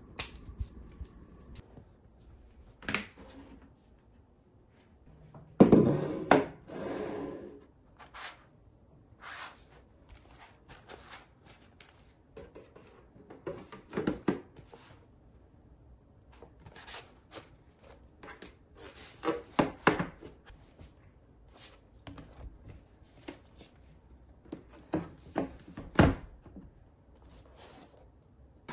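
Handling noises at a bamboo desktop: scattered knocks, taps and rubs as notebooks and folders are slid into a magazine file holder and set down. A loud clatter comes about six seconds in, and a sharp knock near the end.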